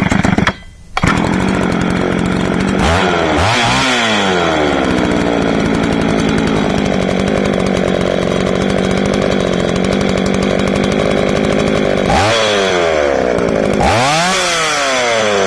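1987 Craftsman 3.7 (Poulan 3700/3800) 61cc two-stroke chainsaw starting up: it fires, cuts out for half a second, then catches about a second in and runs steadily. The throttle is opened and let back several times, the engine rising to high revs and falling back, near the start and twice near the end.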